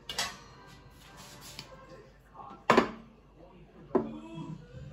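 A utensil knocking against a stainless steel cooking pot: a few sharp clanks with a short ring, the loudest a little under three seconds in.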